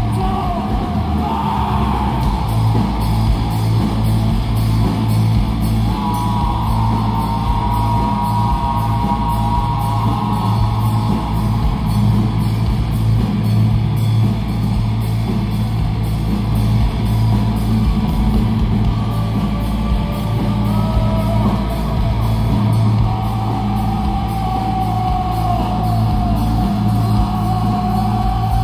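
Rock band playing live, with drums, electric guitars, bass and vocals at a steady loud level, the low end heavy and boomy.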